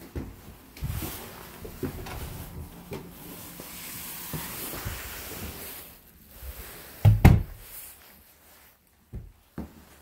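Knocks and thumps with rustling movement noise, loudest a pair of heavy thumps about seven seconds in, like a door or cupboard being shut.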